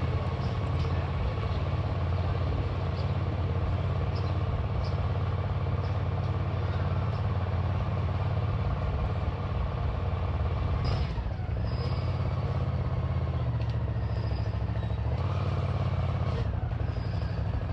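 Engines of a motorcycle escort and the vehicles it accompanies running at walking pace: a steady low rumble.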